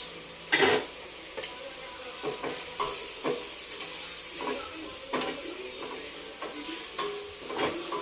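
Food frying in hot oil in a pan, sizzling steadily, while a utensil stirs and scrapes against the pan in short irregular strokes. The loudest scrape comes about half a second in.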